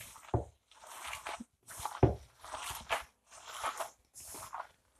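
Gloved hands mixing and squeezing grated raw potato dough, bound with egg, in a bowl: a rhythmic run of short squishing strokes about two a second, two of them with a duller thud.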